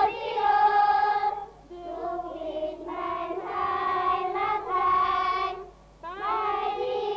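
A children's choir singing a slow song in long held notes, in phrases broken by two short pauses.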